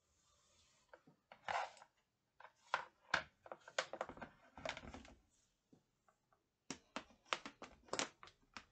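Handling noises from a plastic electric kettle and its power cord: a run of irregular clicks, knocks and short scrapes as it is moved about and set down.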